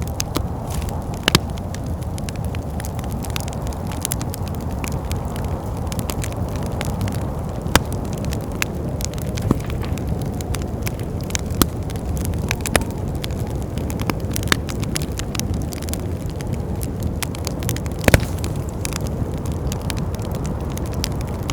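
Wood fire in a fireplace crackling, with irregular sharp pops, a few louder than the rest, over a steady low rush of wind.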